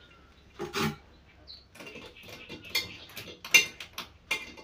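A string of sharp clinks and taps, some with a brief ringing edge, begins about two seconds in and is loudest near three and a half seconds. It is hard ceramic knocking against a hard surface: a white porcelain sink being shifted against the wall while it is held in place for marking.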